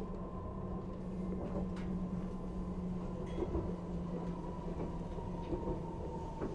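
Passenger train running, heard from inside the car: a steady low rumble with a steady hum and a fainter higher tone, and scattered light clicks.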